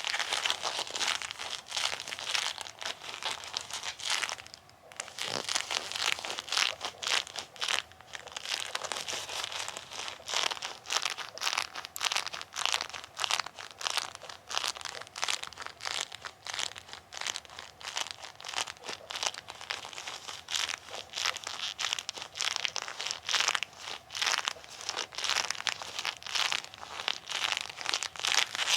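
Bilpearl rubber gloves on both hands being rubbed hard together and pressed so the rubber clings and peels apart, in a dense, irregular run of crackling, sticking sounds. There is a brief lull about five seconds in.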